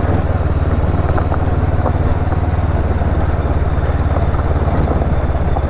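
Honda CB500X parallel-twin motorcycle engine running steadily at low revs as the bike rides slowly over a rough, stony dirt track. The pitch holds level, with no revving, and a few faint clicks sound over the engine.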